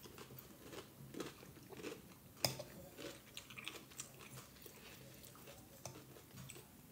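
Faint close-up chewing and crunching of a mouthful of salad with cucumber, with small soft clicks throughout and one sharper click about two and a half seconds in.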